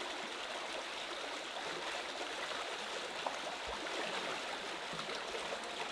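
Water from a natural spring flowing steadily, an even rush with no breaks.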